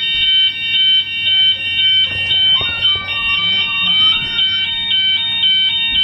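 Hotel fire alarm sounding: a loud, high electronic tone pulsing rapidly, about five pulses a second, without a break.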